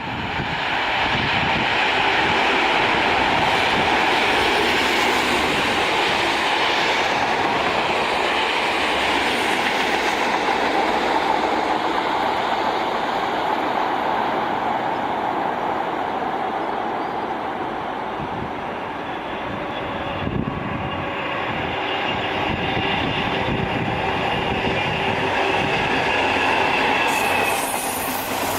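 A train passing at speed on the main line, a steady loud rumble of wheels on rail that lasts throughout and eases slightly a little past the middle.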